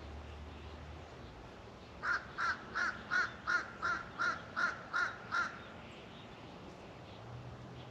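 A crow cawing, a quick run of nine harsh caws about three a second. A faint low engine hum fades out in the first second.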